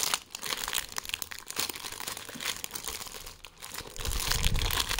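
Parcel packaging crinkling and crackling as it is handled and unwrapped by hand, with a low handling rumble about four seconds in.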